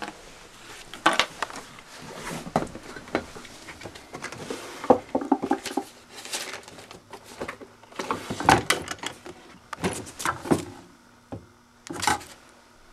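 Hands rummaging through bottles, tubes and small objects on a wooden table and in a drawer: irregular clatter, knocks and rattles, with a cluster of louder knocks about eight to ten seconds in.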